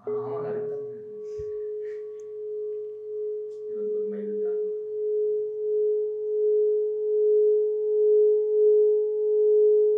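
Hammered metal singing bowl, held on the palm and sung by rubbing a wrapped wooden mallet around its rim: one steady ringing tone that swells gradually in slow pulsing waves, with a fainter higher overtone above it.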